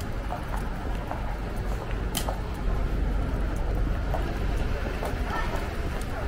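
City street ambience: a steady low rumble of traffic, with scattered faint clicks and one sharper click about two seconds in.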